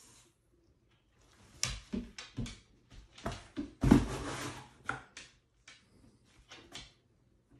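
Cardboard box being knocked and scraped as a husky paws at it with a cat scuffling inside: a run of thumps and scuffs, loudest about four seconds in.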